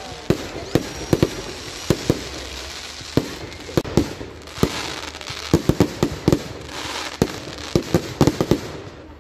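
Aerial fireworks display: a string of sharp bangs from bursting shells, several in quick clusters around the middle and near the end, over a constant hiss.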